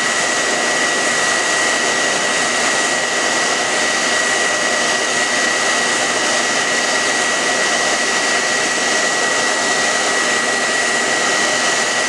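Hand-held hair dryer running steadily, a constant rush of air with a thin high whine held on one pitch.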